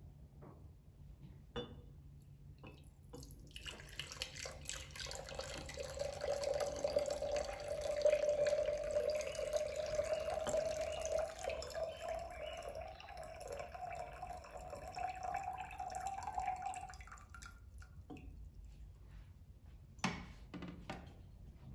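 Water poured from one glass pitcher into another in a steady stream for about fourteen seconds, its pitch rising slowly as the receiving pitcher fills. A few light knocks follow near the end.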